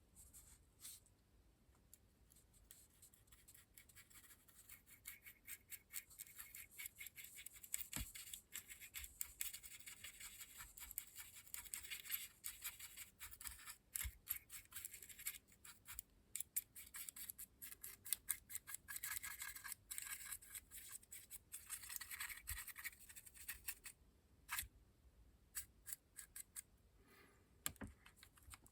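Brush scrubbing weathering pigment powder onto a model locomotive's body in rapid short scratchy strokes, while the paintwork is being faded. The scrubbing stops about 24 seconds in, leaving a few light taps.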